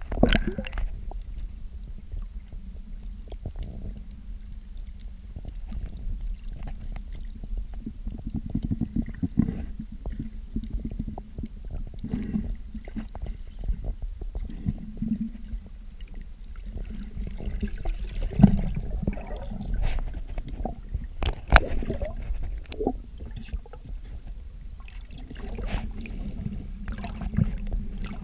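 Muffled underwater noise picked up by a camera just below the sea surface: a low, steady rumble of moving water with scattered clicks and knocks. The sharpest knocks come about two-thirds of the way through.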